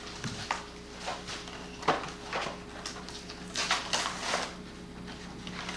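A carded toy package, plastic blister on a cardboard backing, crackling and clicking irregularly as a child pulls it open.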